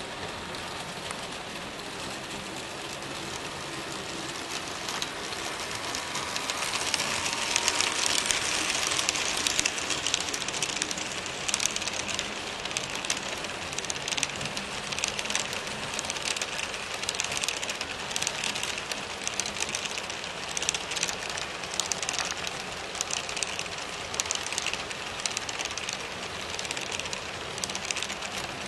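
HO-scale model train cars rolling along sectional track: a steady rattle of small metal wheels on the rails with rapid clicks, loudest about seven to ten seconds in as the cars pass closest.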